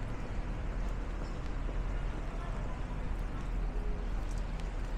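City street ambience in the rain: a steady rush of traffic and wet tyre noise, with faint voices of people passing.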